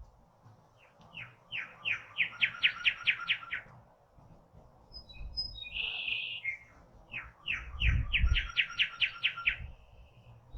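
A songbird singing two phrases, each a run of about ten quick, clear notes that speed up, the second ending in a short held note; a brief harsher call sounds between the two phrases.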